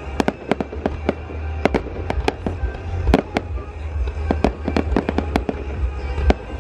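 Aerial fireworks going off in a rapid, irregular series of sharp bangs, several a second, over a steady low rumble.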